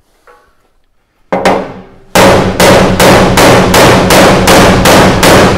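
Hammer blows on a recovery truck body's steel frame, knocking out a dent: one strike, then a fast, even run of heavy blows about two and a half a second, with the steel ringing under them.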